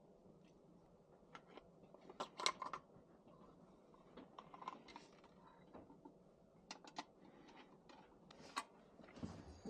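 Faint, scattered clicks and light taps of small objects being handled, over a low steady background hum; the loudest cluster comes about two and a half seconds in.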